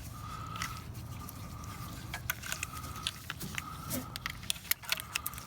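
Scattered small clicks, taps and light rattling from hand-handling small plastic and metal parts while a car door lock module is being fitted.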